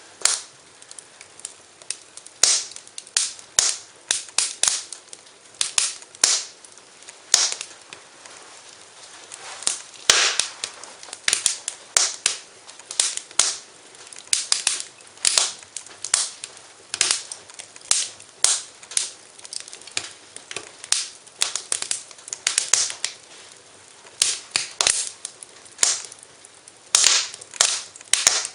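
Wood fire in a fireplace crackling: irregular sharp pops and snaps, several in quick clusters, over a soft hiss.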